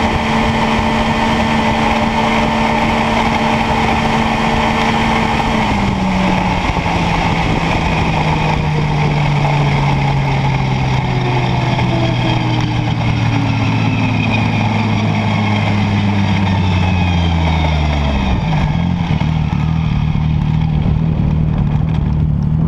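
Yamaha Viper snowmobile coasting down from about 100 mph with the throttle off: the engine's pitch falls steadily over wind and track noise, dips sharply near the end, and settles into a low idle as the sled rolls almost to a stop.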